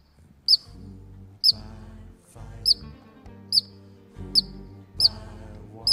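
Ground squirrel giving sharp, high alarm chirps, about one a second, over background music.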